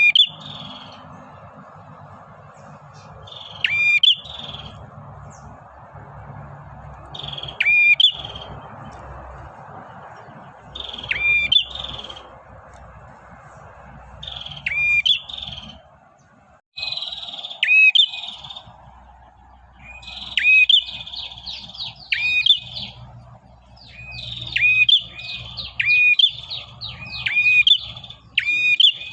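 Male prenjak (prinia) calling: a sharp, looping call repeated about every three to four seconds, then from about twenty seconds in a faster run of quick repeated notes, the excited chatter (ngacor) used to call a female. A steady background hiss sits under the calls through the first half.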